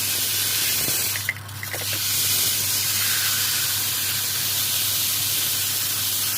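Steady spraying hiss, as of a spray gun or compressed air, breaking off briefly about a second and a half in, over a steady low hum.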